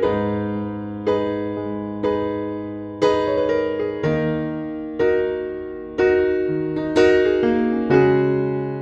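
Background piano music: chords struck about once a second, each fading out before the next.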